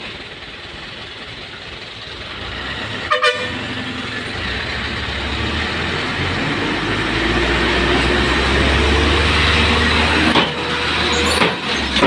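Diesel dump-truck engine revving under heavy load, building over several seconds as the truck strains to get out of deep mud. A short horn toot about three seconds in.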